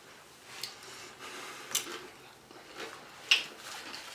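Mouth sounds of someone eating loaded nachos: a few separate wet smacks and crunches, the loudest about three seconds in.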